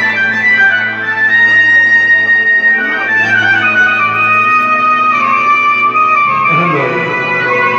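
Arabic party music, instrumental: a melody of long held notes stepping up and down over a steady bass, with no singing.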